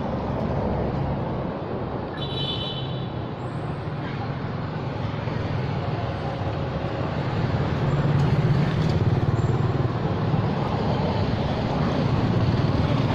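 Road traffic passing, a steady rumble that grows louder about eight seconds in.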